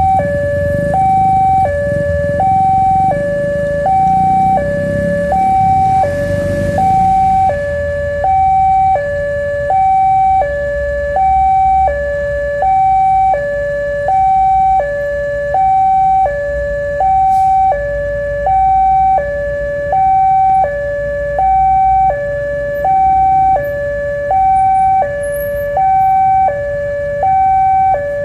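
Electronic two-tone warning alarm, a high and a low note alternating steadily, a little over a second per pair, with a low rumble under it for the first seven seconds or so.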